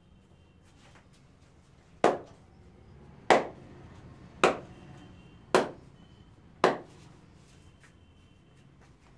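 Five sharp clapping strikes of a percussive head massage, evenly spaced about a second apart.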